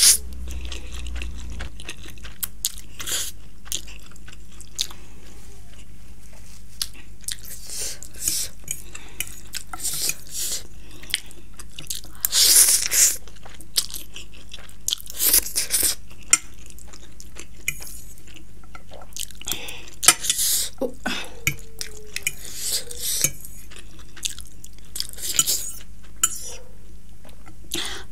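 Close-miked eating of spicy instant ramen noodles: wet chewing and slurping of noodles, with short clicks and clinks of a metal fork against the plate. A steady low hum runs underneath.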